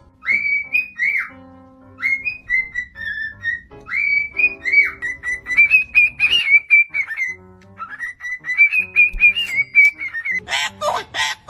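A parrot whistling a tune in clear, gliding notes, phrase after phrase, over soft instrumental backing music. Near the end come a few rough, raspy calls.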